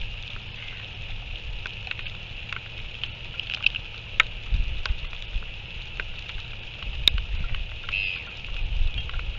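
Wind gusting on an outdoor camera microphone, a low rumble that rises and falls, over a steady high-pitched background with faint chirps and two sharp clicks, about four and seven seconds in.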